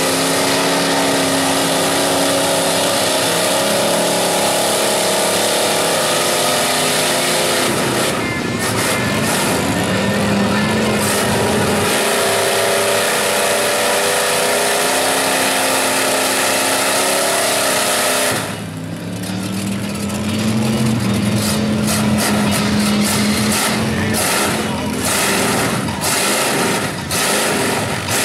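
Big-block V8 engine of a lifted Chevy mega mud truck revving under load while it pulls through deep mud, the revs rising and falling. It eases off briefly about two-thirds of the way through, then climbs again.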